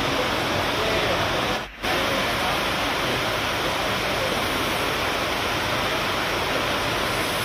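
Heavy rain pouring down in a steady hiss, which cuts out briefly about a second and a half in.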